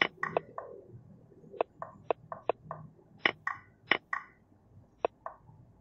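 Computer mouse clicking in quick pairs, a sharp click then a softer one, about eight times, as chess pieces are dragged from square to square on an on-screen board.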